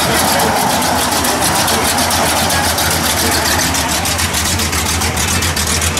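Chevrolet Nova's engine running steadily at idle speed as the car rolls slowly past, a low, even rumble throughout.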